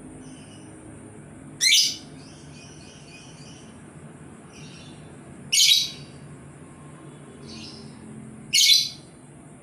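Labet bird calling: three loud, sharp, high calls about three seconds apart, with softer chirps in between.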